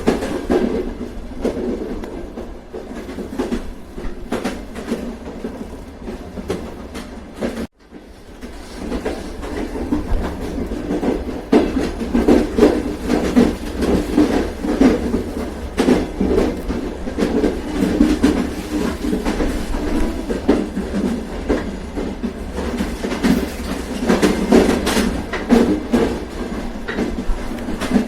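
A moving train, with a steady rolling rumble and the wheels clacking over rail joints. About eight seconds in, the sound cuts out for an instant and comes back, then the clacking grows denser.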